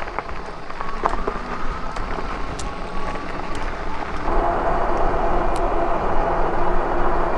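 Riding noise from an electric bike: a steady rumble of wind and tyres on a bumpy trail, with small knocks. About four seconds in, a steady whine from the bike's hub motor joins it.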